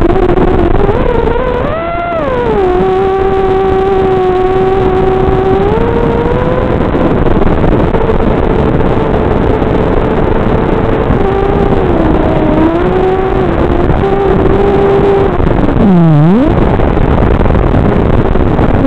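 Electric motors of an ImmersionRC Vortex FPV racing quadcopter whining in flight over a steady rushing noise. The pitch rises and falls with the throttle, with a brief surge about 2 s in and a sharp drop and recovery about 16 s in.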